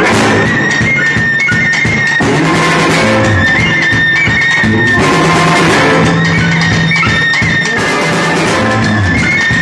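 Loud band music with guitar and drums playing without a break.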